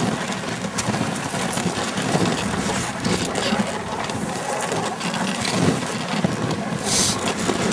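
Dog sled gliding over packed snow: the runners hiss and scrape steadily, with wind buffeting the microphone and a brief louder hiss near the end.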